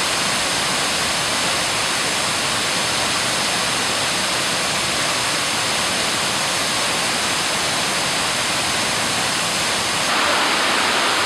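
Waterfall pouring over a rock ledge into its pool: a steady rushing of falling water, growing a little louder about ten seconds in.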